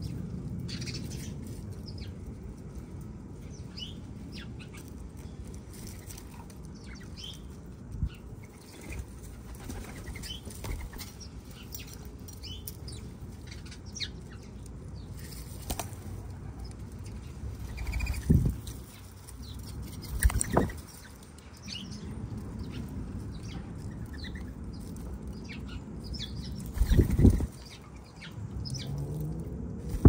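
Backyard birds' wings flapping at a seed feeding spot, with three loud flurries of wingbeats in the second half. Scattered short high-pitched ticks run throughout.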